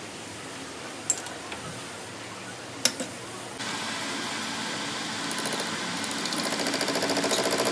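Two sharp clicks, then a small motorised tool starts suddenly about three and a half seconds in and runs with a fast, even clatter that grows louder toward the end.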